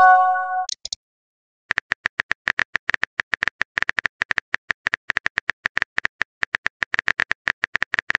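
A short message-sent chime from a texting app, a few steady tones together. After a brief pause comes a long run of rapid keyboard-tap clicks: the app's typing sound effect as the next message is typed.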